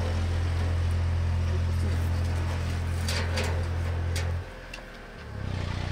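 Motor vehicle engine on the road running with a steady low hum, which falls away about four and a half seconds in and comes back quieter near the end. Two sharp clicks a little after three seconds in.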